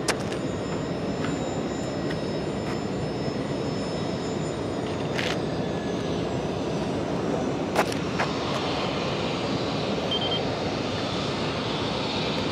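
Steady jet airliner engine noise, with a few short clicks.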